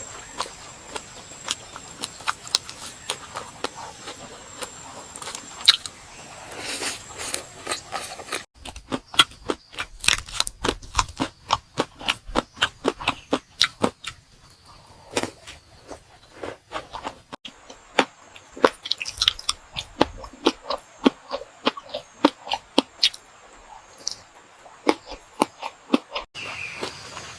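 Close-miked eating: chewing and crunching of crispy food, a fast, uneven run of sharp crunches and mouth clicks that stops and restarts abruptly a few times.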